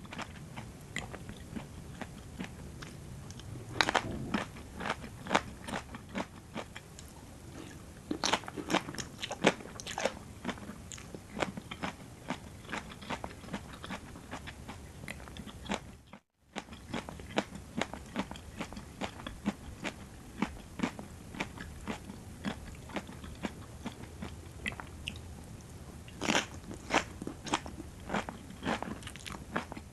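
Close-miked chewing of a rice noodle and vegetable salad: a steady run of crisp crunches, with several clusters of louder, sharper bites. A moment's silence breaks it about halfway through.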